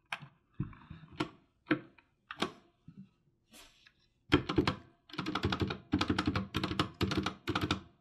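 Typing on a Geek GK61 mechanical keyboard with Gateron optical red (linear) switches. A few scattered keystrokes come first, then from about four seconds in a fast, steady run of keystrokes.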